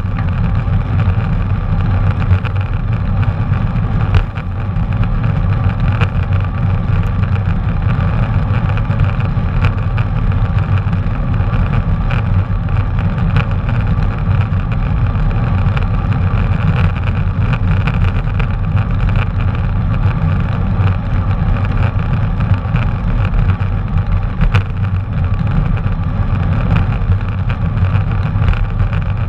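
Steady wind rumble on the microphone with tyre and road noise from a bicycle being ridden, and scattered small knocks and rattles throughout.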